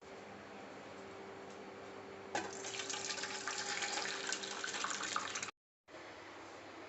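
Buttermilk rasam heating in a kadai on the stove, bubbling as it comes to the boil. It starts as a quiet steady hiss with a low hum. About two and a half seconds in it turns into louder, crackly bubbling, which cuts off suddenly.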